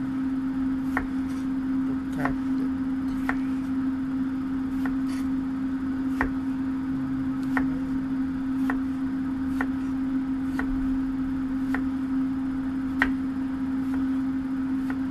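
Knife slicing a cucumber on a wooden cutting board: a light knock of the blade on the board about once a second, over a steady low hum.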